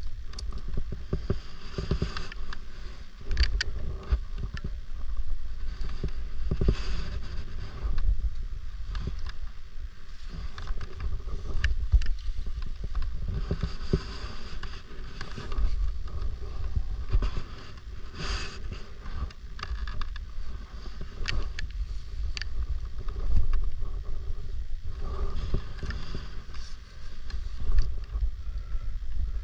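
Wind buffeting an action camera's microphone in uneven gusts, with scattered short clicks and scrapes over it.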